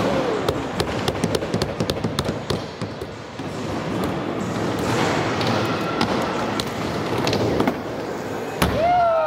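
Skateboards rolling on the ramps and concrete floor of a skatepark, with repeated sharp clacks and knocks of boards hitting the ground and obstacles, and a harder landing impact near the end.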